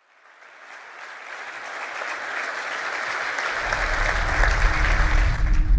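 Crowd applause fading in and growing steadily louder. A deep low rumble swells beneath it from a little past halfway.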